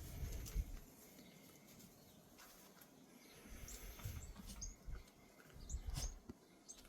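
Faint, short, high-pitched chirps of small birds, several spread over the middle and later part, over soft low thumps and quiet background noise.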